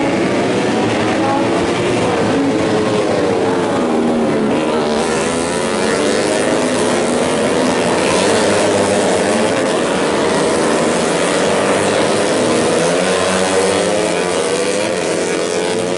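Several tuned four-stroke moped-class racing motorcycle engines (up to 150cc) running hard together as a pack passes, their pitches rising and falling through the gears. The sound gets brighter and louder about five seconds in.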